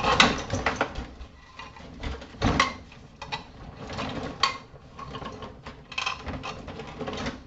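Small metal scrap parts being handled and taken apart by hand: irregular clinks, knocks and rattles, the loudest near the start and about two and a half seconds in.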